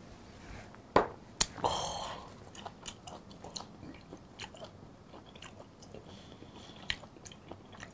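A shot glass knocking down on the table with a sharp clack about a second in, a short breathy exhale after a shot of soju, then soft wet chewing and lip smacks as raw brown croaker sashimi is eaten.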